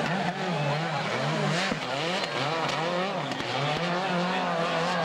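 SEAT Córdoba WRC rally car's turbocharged four-cylinder engine, its revs rising and falling about twice a second as the throttle is worked on snow, then holding steadier near the end.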